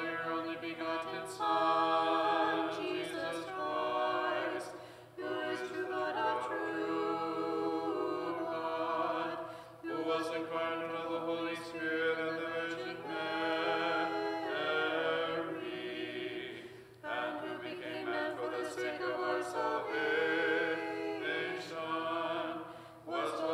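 Unaccompanied Orthodox church chant, sung in long phrases with brief breaks between them about every five to seven seconds.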